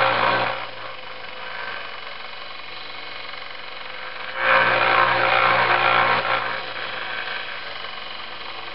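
Small benchtop belt sander running steadily, with the steel hatchet blade pressed against the belt in grinding passes: one pass ends about half a second in, and a second loud rasping pass runs from about 4.5 to 6.5 seconds in. The blade is being ground down to reprofile its edge.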